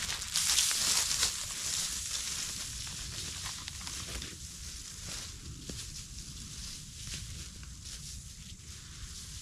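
Footsteps crunching through dry leaves and pine straw, loudest in the first couple of seconds and growing fainter as the walker moves away, mixed with the hiss of fine granular deer attractant pouring from a bag onto the leaf litter.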